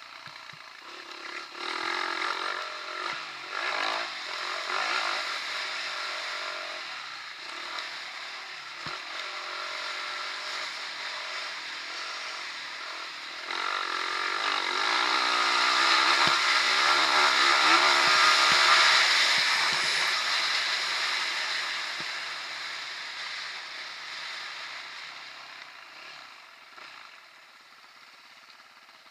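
Dirt bike engine revving up and down as it rides a dirt track, its pitch rising and falling with the throttle. It is loudest a little past the middle, then dies away toward the end.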